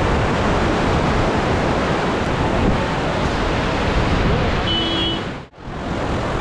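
Loud steady rushing noise of wind buffeting the microphone over the flooded Godavari river. It drops out abruptly for a moment near the end, then resumes.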